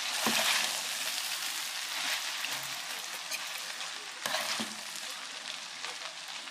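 Drained spaghetti being tossed with a fork in an oiled pot, with a steady sizzle and the fork clicking against the pot a few times.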